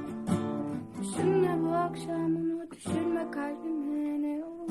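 Acoustic guitar strumming a slow song accompaniment, with a female voice holding long wordless notes with vibrato over it.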